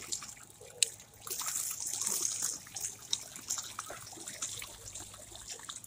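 Water splashing and churning from a children's paddle boat's plastic paddle wheel as it turns, with a single sharp click about a second in.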